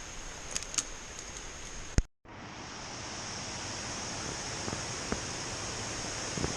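Waterfall and creek water rushing steadily, with a thin high steady tone over it. About two seconds in there is a sharp click and a brief dropout where the recording cuts, after which the water is a little louder.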